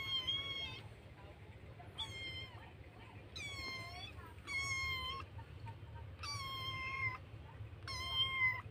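Kittens meowing for food: a string of about six long, high, level meows, one every second or two.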